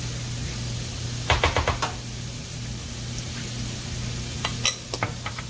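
Butter melting and sizzling in a cast iron skillet, a steady hiss over a low hum, with a quick run of sharp clicks about a second in and a few more clicks near the end.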